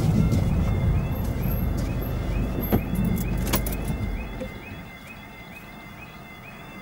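Level crossing warning alarm sounding a repeated rising yelp, about three a second, while the barriers lower. For the first four seconds a car's running noise is louder; it fades about four and a half seconds in.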